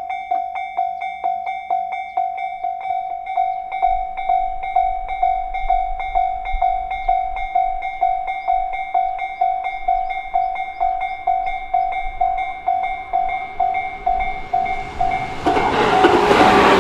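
Japanese level-crossing warning bell ringing steadily, about two and a half dings a second, while an approaching train's low rumble builds. Near the end the noise of a Tobu Isezaki Line train rushing onto the crossing swells in and becomes the loudest sound.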